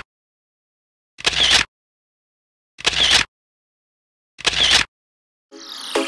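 Camera shutter sound effect, three times about a second and a half apart with silence between. Electronic music starts near the end.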